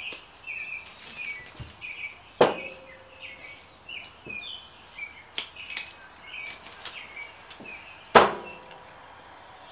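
Two sharp knocks on a stainless-steel worktable as chicken legs are cut off and set down, each leaving a brief metallic ring, about two and a half seconds and eight seconds in, with a few lighter clicks between. Small birds chirp steadily in the background.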